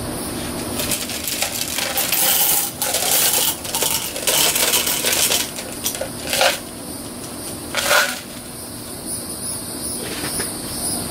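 Clear glass gems poured into a glass cup, clattering and clinking against the glass in a run of about four seconds, then two single clinks as the last gems settle.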